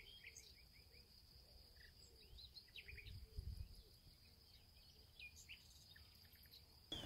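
Near silence with faint outdoor ambience: scattered small bird chirps over a steady, faint high insect-like hum, and a brief soft low rumble about three and a half seconds in.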